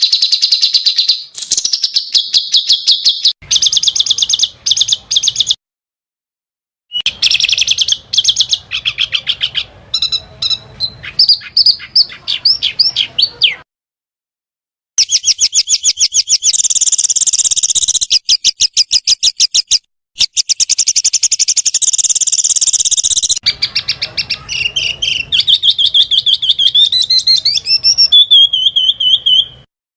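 Small songbirds singing fast, high 'tembakan' bursts: rapid trills and chattering note series, in a string of separate recordings spliced together, with abrupt cuts and two silent gaps of a second or so, about a fifth and near the halfway point.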